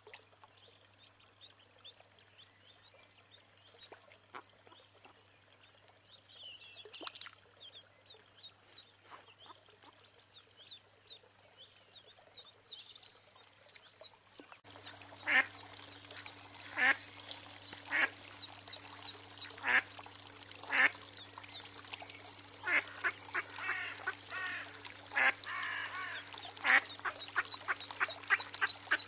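Mallard hen and her newborn ducklings calling: thin high peeps and short quacks, sparse and faint at first, then louder and coming every second or so from about halfway through.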